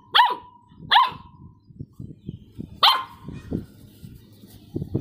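Saint Bernard puppy barking three times, sharp yappy barks, the third after a pause of about two seconds.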